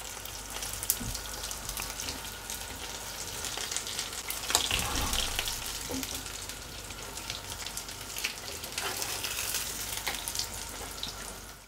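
Mozzarella-stuffed potato-dough pastries shallow-frying in vegetable oil in two pans: a steady crackling sizzle full of fine pops. The sizzle swells briefly about four seconds in as metal tongs turn the pastries over.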